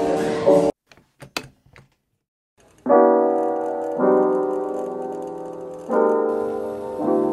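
Background music: slow, sustained piano chords, a new chord every second or two, starting about three seconds in. Before that, an earlier music track cuts off, followed by a few faint clicks and a brief pause.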